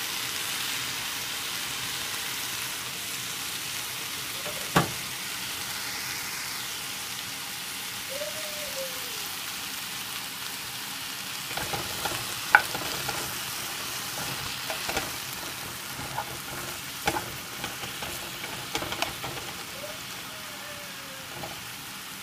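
Sliced zucchini rounds sizzling steadily as they fry in oil in an uncovered nonstick pan. About halfway through, a wooden spatula starts stirring them, with scattered light knocks and scrapes against the pan. There is a sharp knock about five seconds in, and the loudest knock comes soon after the stirring begins.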